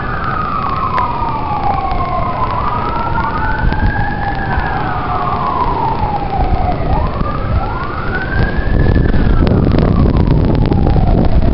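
At least two sirens wailing together, their pitch sliding slowly up and down in overlapping sweeps a few seconds long. Wind buffets the microphone throughout and grows louder near the end.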